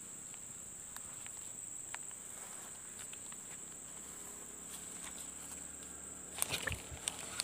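Insects trilling: one steady, high-pitched drone with faint scattered clicks. Near the end comes a short burst of rustling and knocks, the loudest part.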